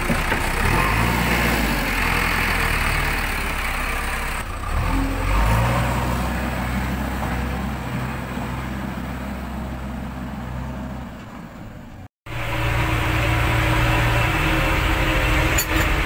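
JCB 3DX backhoe loader's diesel engine running steadily, picking up briefly about five seconds in. The sound cuts out abruptly for a moment about twelve seconds in, then a diesel engine runs on, heard from the driver's seat.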